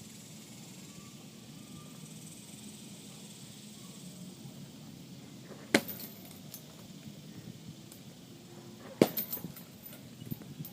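Two punches landing on a punching bag, about three seconds apart; the second is the harder and is followed by a brief metallic rattle.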